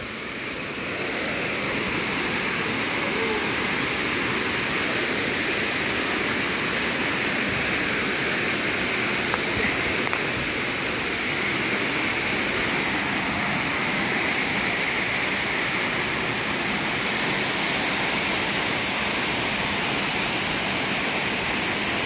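Twin waterfalls pouring into a rock pool, a steady, even rush of falling water.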